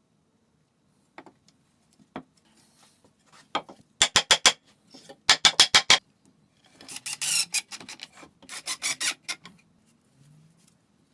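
A hand tool worked against wood in quick back-and-forth scraping strokes, coming in four short bursts with brief pauses between them.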